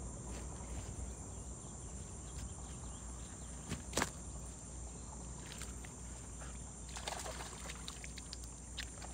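Steady high-pitched insect drone, with one sharp knock about four seconds in and light splashing of water at the shoreline near the end.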